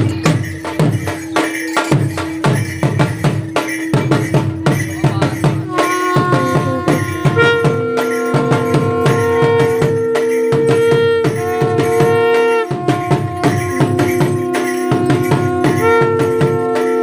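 Dhamal music: fast, driving drumming with jingling percussion, and steady held melody notes over it that move to higher pitches about six seconds in.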